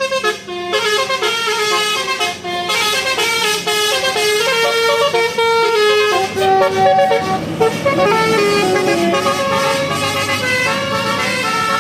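Indonesian tour bus's Basuri telolet horn playing a quick melody of short stepped notes, with the bus engine running underneath in the second half.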